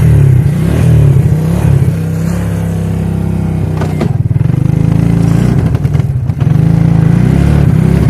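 Suzuki King Quad ATV engine running loud and close, easing off about two seconds in, revving back up around four and a half seconds, with a short dip near six seconds.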